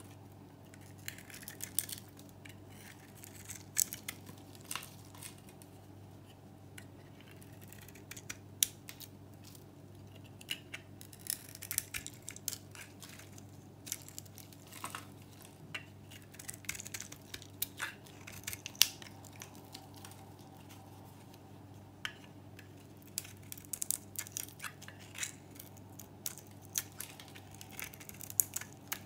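Metal knife blade shaving a bar of dry, crisp soap with a green painted, varnished coat: irregular crisp crackles and scraping as the flakes snap off.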